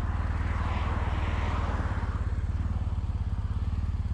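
Triumph Bonneville SE's parallel-twin engine running steadily with an even, rapid pulse. A rushing noise sits over it in the first couple of seconds and fades by about halfway.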